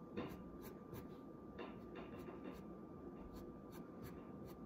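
Pencil drawing on paper: short, faint scratchy strokes, about two or three a second, irregularly spaced, as pointed tree branches are sketched. A faint steady high hum lies underneath.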